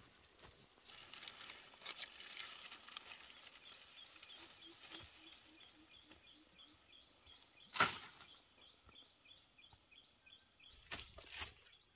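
Dry bamboo poles and brush rustling and scraping as they are carried and handled on dry ground, with footsteps in dry grass. One sharp clack about eight seconds in is the loudest sound.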